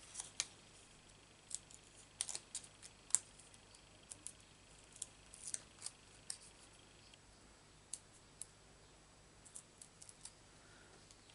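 Small, irregular crackles and ticks of paper and foam adhesive dimensionals being handled: pads pressed onto a die-cut and backing papers picked off with the fingernails.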